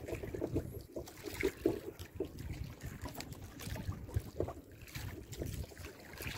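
Sea water lapping against the hull of a small outrigger fishing boat, with wind on the microphone and a few light knocks.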